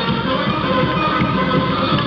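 Music for a Mexican ballet folklórico dance, playing continuously as the dancers perform.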